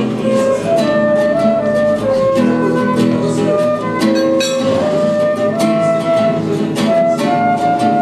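Acoustic guitar plucking chords under a flute playing a slow melody of held notes.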